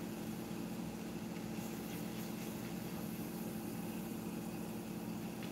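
A steady low mechanical hum that stays unchanged throughout.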